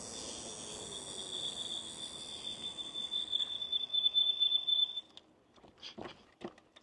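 Electric scooter's brakes squealing in a steady high-pitched tone as the scooter slows, cutting off about five seconds in. A couple of faint clicks follow near the end. The brakes are new and not yet bedded in, which is why they squeak.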